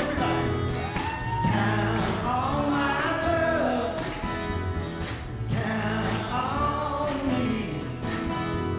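Live acoustic band playing a slow song on two acoustic guitars and an upright bass, with voices singing the melody over it.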